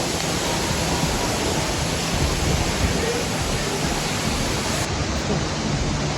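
Waterfall with water rushing down over rocks: a steady, even hiss of falling water.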